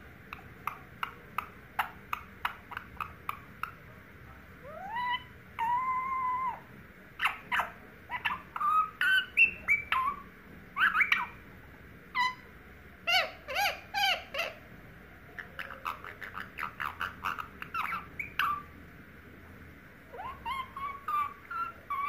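Indian ringneck parakeet chattering: a string of short clicks and chirps, about three a second at first, with a few rising whistled notes and bursts of quick babbling calls separated by short pauses.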